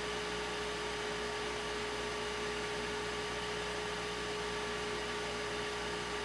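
Steady hum and hiss with one constant tone, unchanging throughout.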